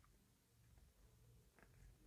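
Near silence: faint room hum, with two faint ticks of a sheet of origami paper being creased in the fingers, one at the start and one about one and a half seconds in.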